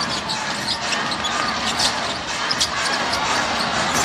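A basketball dribbled on a hardwood court, bouncing repeatedly against steady arena crowd noise.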